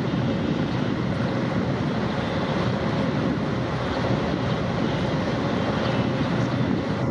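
A river boat underway: a steady low engine rumble with a faint constant hum running through it.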